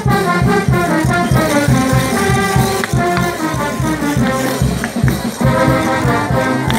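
Band music for dancing, with a fast steady beat and a repeating melody.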